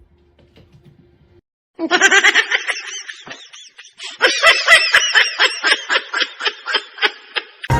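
High-pitched laughter in quick, rhythmic bursts, starting about two seconds in. It dips briefly in the middle, then runs on in a fast string of giggles.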